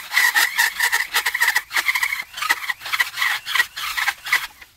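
Pneumatic die grinder cutting a groove through the old plastic wear ring inside a Sea-Doo 140 mm jet pump housing, to split and release the ring. A high whine is broken into quick scraping strokes as the burr is worked back and forth, and it cuts off near the end.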